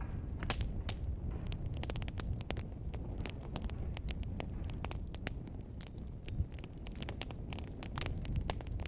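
Wood fire burning in a fireplace: a steady low rumble with frequent, irregular sharp crackles and pops.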